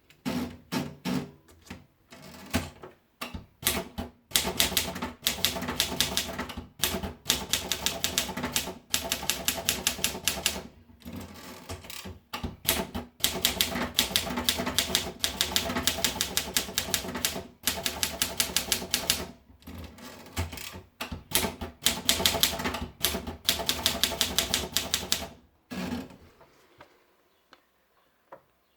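Torpedo typewriter being typed on: runs of quick, sharp keystrokes broken by short pauses, the typing stopping about 26 seconds in.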